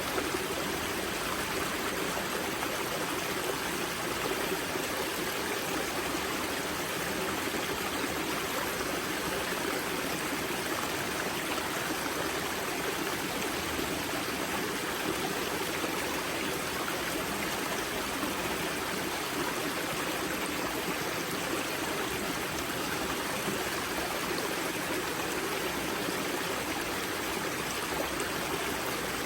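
Spring-fed mountain stream at its source, water running and splashing steadily over rocks with a constant rushing sound.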